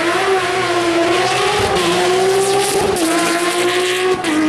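Rally car engine running loud at high revs as the car passes, the engine note held high and fairly steady, with a brief drop in pitch about four seconds in.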